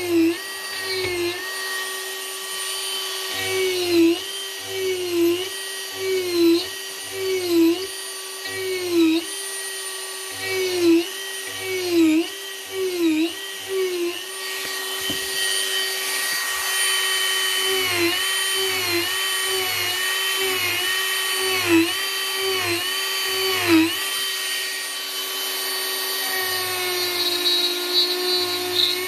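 Dremel rotary tool running at high speed as it carves wood. Its whine dips in pitch each time the bit is pressed into the wood, roughly once a second, with a few steadier stretches where it runs without bearing down.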